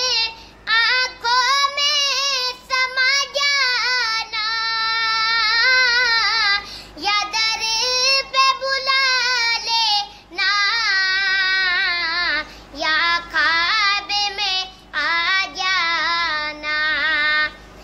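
A child's high voice singing solo and unaccompanied, in long wavering, ornamented phrases separated by short breaths.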